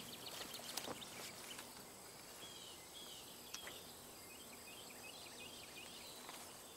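Quiet outdoor ambience with faint bird calls: a few short down-slurred whistles, then a run of quick little chirps.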